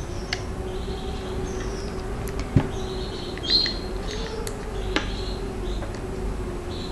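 Rubber loom bands squeaking against the plastic pegs of a Rainbow Loom as a metal hook stretches and lifts them, with short high squeaks and a few sharp clicks of the hook on the pegs. A faint steady hum runs underneath.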